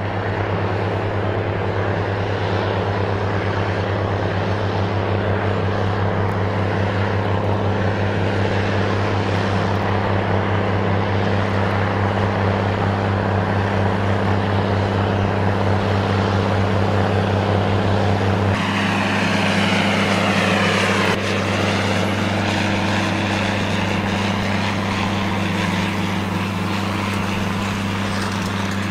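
Six-cylinder Cummins diesel engines of Rite 606 and 404 articulated tractors running steadily under load as they pull cultivators, a low, even drone. The tone changes about two-thirds of the way through, with a brief sweep in pitch.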